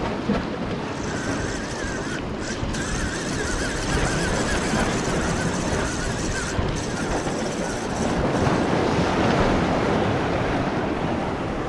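Surf washing and breaking against shoreline rocks, with wind buffeting the microphone; the wash swells louder about eight seconds in.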